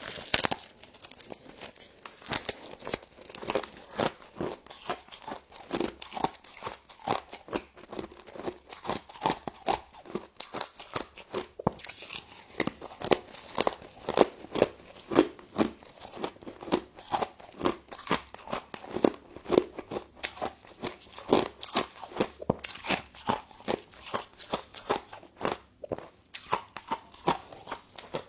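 Frost being bitten and chewed close to the microphone: a steady run of sharp crunches, several each second.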